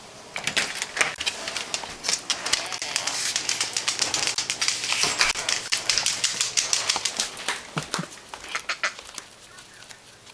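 A small dog's claws clicking fast and unevenly on a hard floor as it scurries about, the clicks thinning out near the end.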